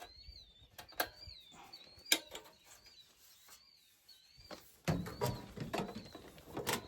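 A small bird singing, repeating a short wavering chirp over and over, with sharp clicks and knocks scattered through it. A low rustling noise comes in about five seconds in.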